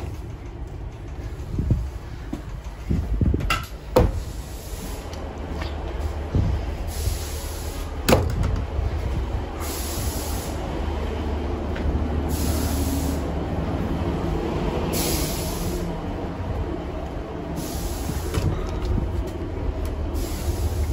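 Class 150 Sprinter diesel multiple unit heard from inside: its underfloor diesel engine running with a steady low rumble. Several sharp knocks of interior doors come over it, the loudest about eight seconds in. From about seven seconds on, a high hiss comes and goes every two to three seconds.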